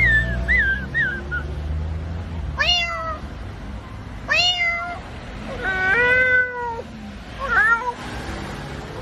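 A man imitating a cat with his voice: four separate meows, the third longer and drawn out. Before them come quick chirping whistles, and a low hum fades out about two seconds in.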